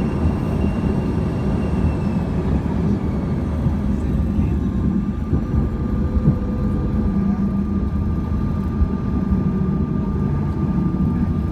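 Cabin noise inside a Bombardier CRJ-200 with its rear-mounted GE CF34 turbofans running: a steady rumble with a thin engine whine on top. A high whine fades out in the first few seconds, and a lower one sets in about halfway.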